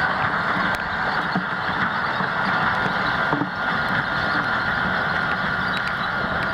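Fendt tractor running steadily in the field, with a thin steady high whine over the engine noise.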